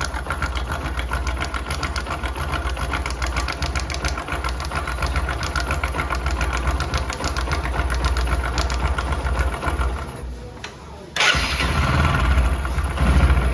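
Bajaj Discover motorcycle's single-cylinder engine idling with a rattle from a slack timing chain, while the cam chain tensioner adjuster is tightened to take up the slack. About ten seconds in the engine sound sags for about a second, then comes back suddenly and louder.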